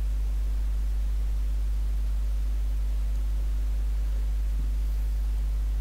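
Steady low electrical hum with a constant hiss underneath, the background noise of the microphone and recording setup.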